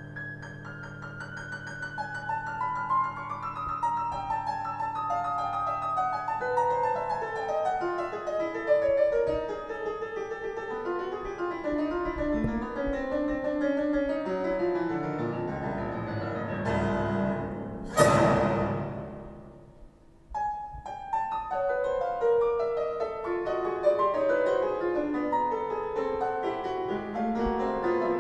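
Piano-like keyboard music played through a loudspeaker system with two subwoofers, in quick cascading runs of notes. About 18 seconds in, a single loud hit rings out across the whole range and dies away almost to silence before the music picks up again.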